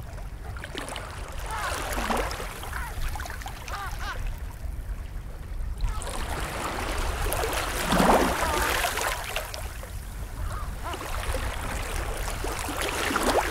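Penguins calling in a colony: scattered squawking calls, the loudest about eight seconds in, over a steady low rumble and hiss of wind and water.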